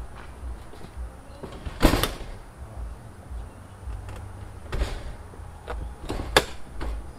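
Airstream trailer entry door shut with a sharp bang about two seconds in, then several lighter knocks and clicks as hands press on the closed door; the top of the door does not seal against its frame.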